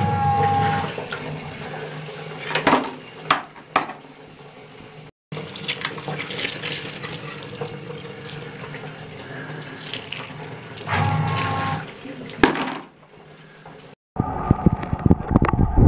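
Water splashing and trickling as wet mud and stones are scooped out of a hole by hand, with a few sharp knocks of stone. The sound cuts out briefly about five seconds in and changes abruptly near the end.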